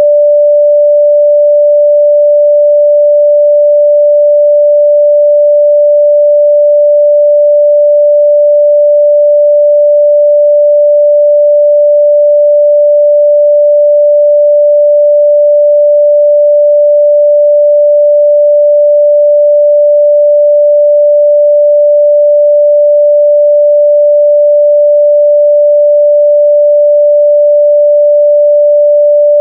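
A pure 588 Hz sine test tone, one steady unbroken pitch at a constant loud level.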